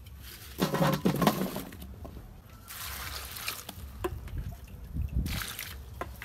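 Water sloshing and trickling in a stainless steel bowl as cut plant stalks are handled in it. It comes in uneven bursts, the loudest about a second in.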